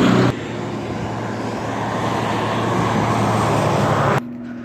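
Diesel truck engine running as the truck passes close by, a low drone over road noise. The level drops sharply just after the start and again near the end.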